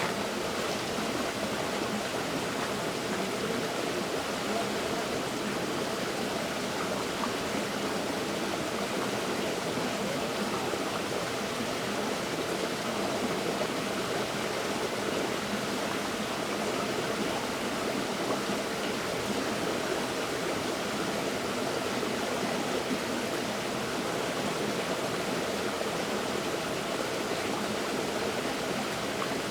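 River water flowing over rocks, a steady rushing babble.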